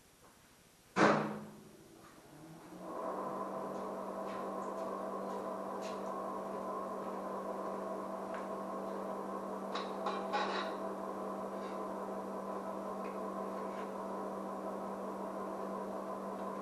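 A single sharp clunk about a second in, then a steady electrical hum with several overtones that settles in a second or two later and holds at an even level, with a few faint clicks near the middle.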